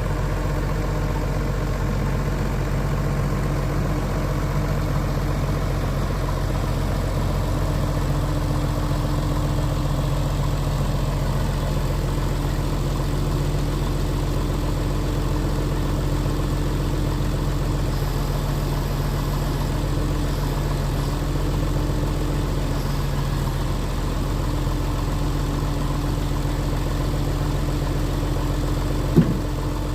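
Wood-Mizer sawmill engine running steadily, an even hum. There is a single sharp click near the end.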